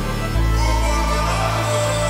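Background music with a deep sustained bass line that moves to a new note about a third of a second in, under held higher tones.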